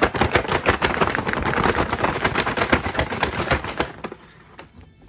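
A folded-over bag holding mushroom pieces and cornmeal mix shaken hard to coat them: a fast, loud rustling rattle that stops about four seconds in.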